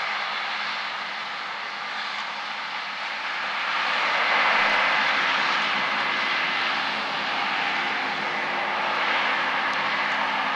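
Combine harvester running steadily: diesel engine hum under the rush of the threshing machinery, getting a little louder about halfway through.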